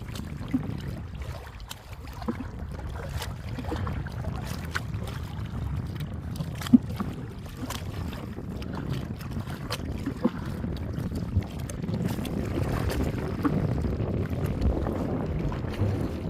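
Wind rumbling on the microphone over water from a small boat on the lake, with scattered light knocks; it grows a little louder toward the end.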